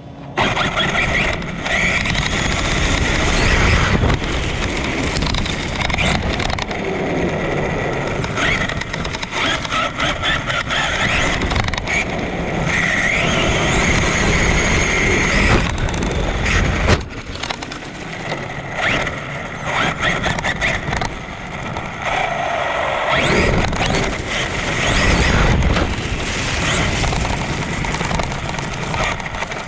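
Traxxas Sledge 6S RC monster truck driving hard, heard from a camera mounted on its body: the brushless electric motor's high whine rises and falls with the throttle over the rush of the tyres on grass and dirt, dropping off briefly partway through.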